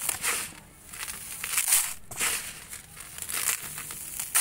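Dry sand-and-cement mix poured from the hands onto a heap, falling grains giving a gritty hiss that comes in repeated surges about every half second to a second.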